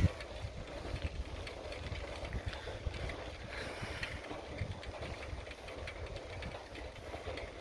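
Bicycle rolling along a paved road: a steady low rumble of road and wind noise on the handheld phone's microphone, with scattered light clicks and rattles.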